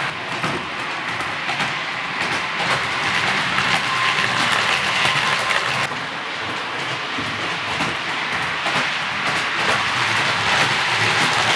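OO gauge model goods train of short wagons running along the track: a steady rattle of small wheels on the rails, with frequent clicks as they pass over the rail joints.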